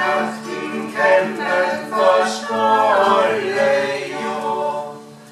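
A small group of voices singing a song together, accompanied by acoustic guitar; the singing drops away shortly before the end.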